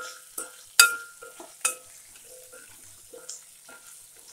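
Steel ladle clanking against the metal kadai while stirring shallots and garlic sautéing in hot oil, with a faint sizzle underneath. Several ringing clanks come in the first two seconds, the loudest about a second in, then the stirring goes quieter.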